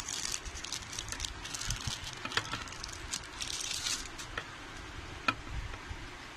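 Thin plastic film of a processed cheese slice crinkling in several bursts as it is peeled off by hand, with a couple of short light ticks later on.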